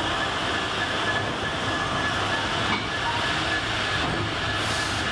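Freight train hauled by a Class 66 diesel locomotive passing close by. The locomotive goes past first, then the wagons' wheels run over the rails in a steady loud rumble, with a thin, steady, high squeal running through.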